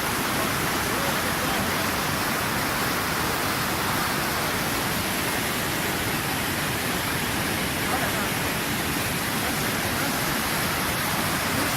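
Steady rushing water, an even hiss and roar that holds at one level throughout.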